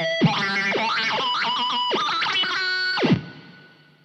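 Rivolta Mondata VIII electric guitar played through the RPS Effects Arcade Machine pedal set to a modulation mode. A short run of notes with wobbling, swooping pitch stops abruptly about three seconds in and then rings away.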